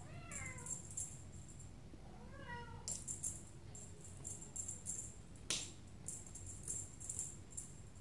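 A small jingle bell shaken in short bursts of jingling, while a kitten meows twice: once at the start and again about two and a half seconds in. A single sharp click about five and a half seconds in.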